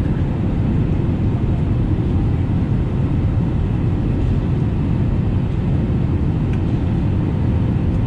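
Steady low rumble of engine and airflow noise inside the cabin of an Airbus A320neo airliner descending on approach.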